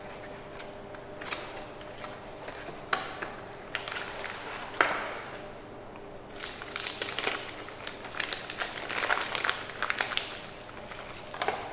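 Packaging being handled: a cardboard box opened and its contents lifted out with a few sharp clicks and taps, then a clear plastic bag crinkling steadily as it is peeled off a metal door opener, from about halfway on.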